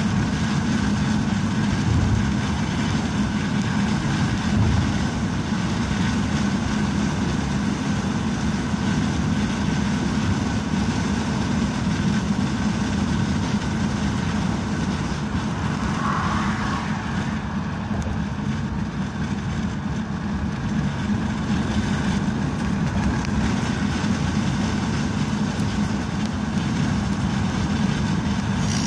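Steady engine and road noise from a moving vehicle, heard from inside its cabin.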